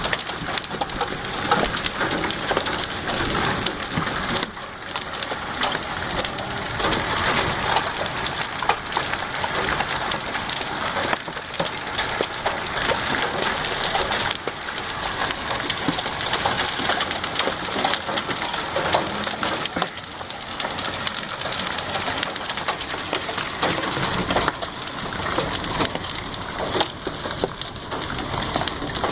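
Small hail and heavy rain pelting down: a dense, steady clatter of countless small impacts, the hailstones almost nickel size.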